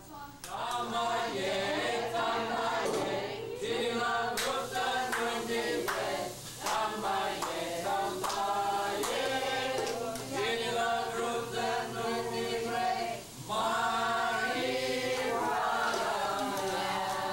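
A group of voices singing together in long, held phrases, with a short break every three to four seconds.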